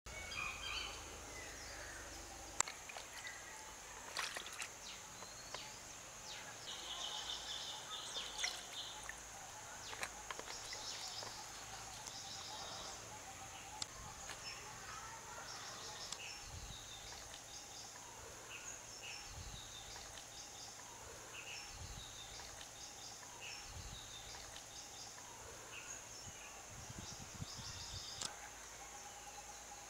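Outdoor ambience: a steady high insect drone with scattered bird chirps, and now and then light clicks and soft knocks from hands handling prawns in a basin of water.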